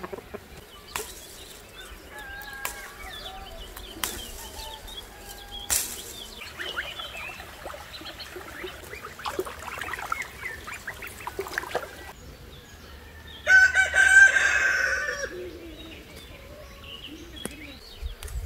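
Chickens clucking, with one loud rooster crow a little past two-thirds of the way through.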